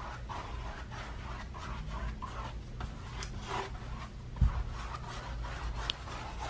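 Paintbrush bristles scrubbing black acrylic paint across a stretched canvas in quick back-and-forth strokes. There is a single dull thump about four and a half seconds in.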